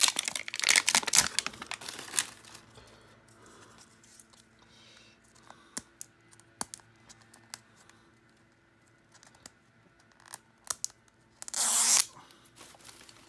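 Paper wrapping of a toy's paper-ball packaging being torn and crinkled open by hand. Ripping and rustling fills the first two seconds, then small clicks and rustles, then one more short rip near the end.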